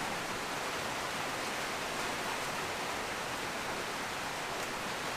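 Steady rain heard from inside a shed as an even hiss.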